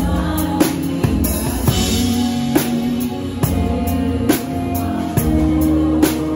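Live band music with the drum kit up front: kick and snare hits on a steady beat, a little under one strong hit a second, over sustained bass and keyboard tones.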